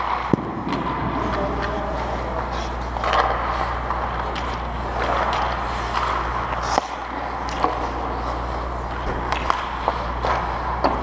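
Hockey skates scraping and carving on rink ice, swelling and fading as skaters move, with a few sharp clicks of sticks and puck, over a steady low hum.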